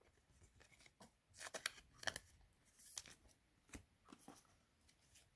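Faint rustles and clicks of baseball trading cards being handled and flipped through, several short sharp ticks at irregular moments.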